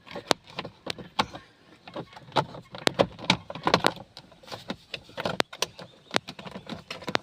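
Plastic steering column covers of a 2009 Honda CR-V being worked and pressed back into place: a quick, irregular string of hard plastic clicks, knocks and rattles.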